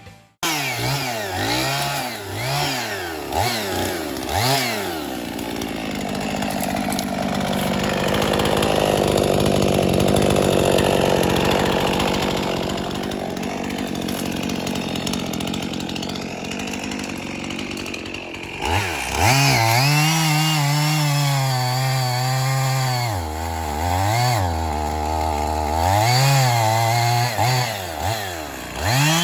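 Two-stroke chainsaw revving up and down in quick blips, then running steadily under load as it cuts through wood for about thirteen seconds. The sound breaks off briefly, and the saw goes back to revving up and down through the end.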